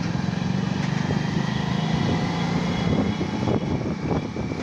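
Motorcycle engine running steadily while riding along, a low hum over a broad rush of road and wind noise, with a few light knocks in the second half.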